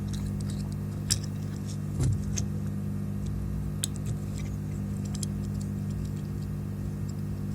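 Scattered small clicks and taps of hand tools on metal component leads, the sharpest about a second and two seconds in, over a steady low electrical hum.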